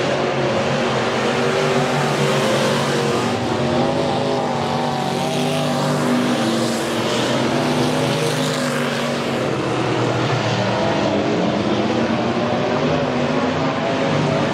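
Dirt-track race car engines running hard around the oval, several engines at once, their pitch rising and falling as the cars come off and go into the turns.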